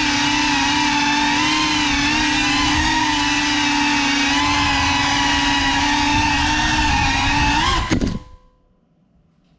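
A GEPRC Cinelog 35 cinewhoop's brushless motors and ducted propellers whine steadily, the pitch wavering slightly with throttle. Near the end there is a sharp knock as the drone crashes, and the motor whine cuts off abruptly.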